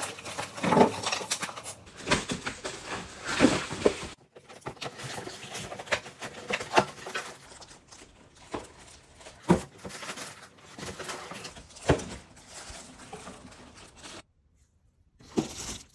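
Cardboard packaging and metal grill parts being handled while a large gas-grill box is opened: irregular knocks, scrapes and rustling, with a few sharper bangs.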